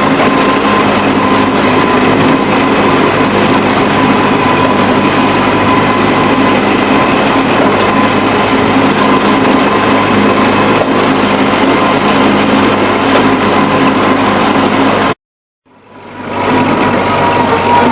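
Old farm tractor engine running steadily under load, with a constant high whine over the engine note. Near the end the sound cuts out completely for about half a second, then fades back in over about a second.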